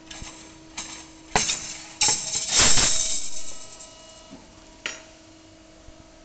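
Metal clanking in a tube-bending workshop: a few separate clanks, then a louder rattling clatter lasting about a second and a half, and one more clank near the end, over a steady machine hum.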